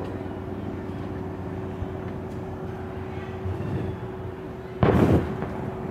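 A firework shell bursting with a loud bang about five seconds in, over a steady low hum.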